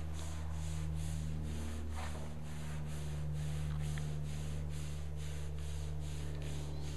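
Hands rubbing and pressing vinyl resist and its paper backing flat against the glass, heard faintly under a steady low hum and a hiss that pulses about four times a second.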